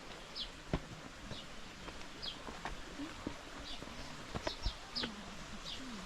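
A bird chirping: short, high, falling chirps repeated roughly once a second. A few sharp clicks or knocks come in between, the loudest about a second in and again near four and a half seconds.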